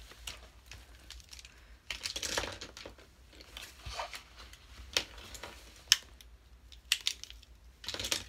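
Makeup being handled, an eyeshadow palette and brush: scattered light clicks, taps and rustles, with a few sharper single clicks in the second half.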